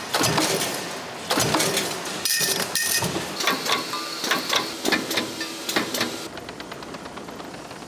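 Production-line machinery clanking and knocking: a run of irregular metallic strikes over running machine noise, with brief high ringing about two to three seconds in. Near the end it gives way to duller, steadier machine noise.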